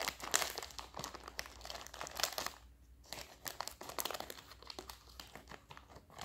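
Scissors snipping through a small plastic snack packet, the wrapper crinkling irregularly as it is held and cut, with a brief lull about two and a half seconds in.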